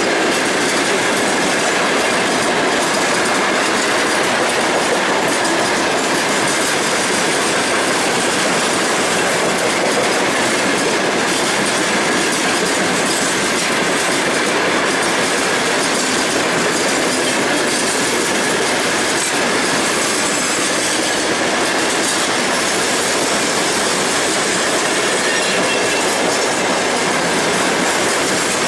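Freight train's open gondola wagons rolling past on the rails: a loud, steady wash of wheel-and-rail noise with a faint steady high whine held throughout.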